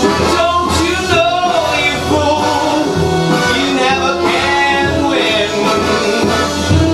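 A man singing a slow song into a microphone over instrumental accompaniment with a steady bass line.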